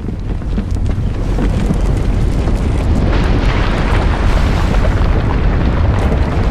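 Earthquake sound effect: a loud, continuous deep rumble with scattered crackles, joined about halfway through by a brighter layer of crumbling noise.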